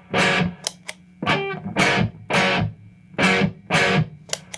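Epiphone Les Paul electric guitar played through a Marshall JCM 2000 TSL 60 valve amp with the amp's reverb on: short strummed chords in a rhythmic pattern, about six strokes with quick scratchy muted strokes between them.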